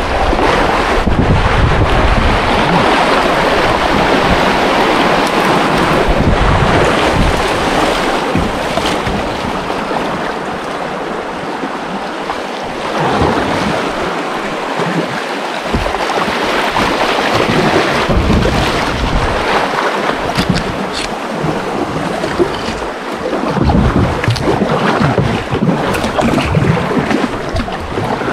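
River rapids rushing, with wind buffeting the microphone.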